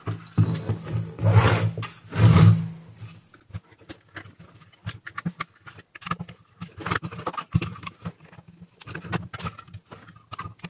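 Sheet-metal cover of a switching power supply being slid off and handled: a few loud scrapes and rubs in the first three seconds, then scattered light clicks and taps as the chassis and circuit board are handled.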